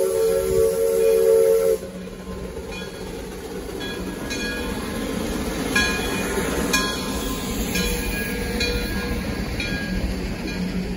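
Steam locomotive's whistle sounding a chord that cuts off about two seconds in. Then the locomotive and its wooden passenger coaches roll slowly past, a steady rumble with scattered metallic clanks and squeaks from the running gear and wheels.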